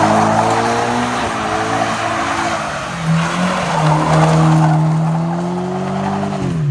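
A sports coupe doing donuts: its engine is held high in the revs while the rear tyres spin and squeal. Around the middle the tyre squeal fades and the engine note climbs a little, then the revs drop sharply near the end.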